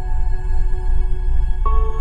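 Background music: slow ambient chords held steadily, moving to a new chord about one and a half seconds in.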